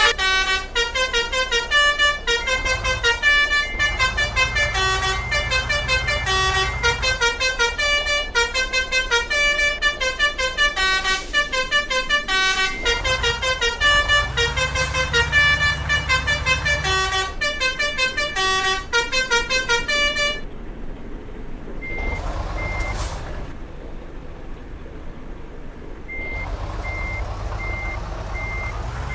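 Telolet multi-tone bus horn playing a fast melody of short, changing notes over the low rumble of the bus engine, which swells twice. About 20 seconds in, the horn stops abruptly, and a reversing alarm begins a steady series of high beeps.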